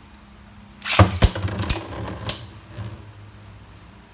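A Beyblade Burst top is launched into a plastic stadium where another top is already spinning. About a second in comes a burst of launch noise with four sharp clacks over about a second and a half as the tops hit each other and the bowl, then both settle into a faint spin.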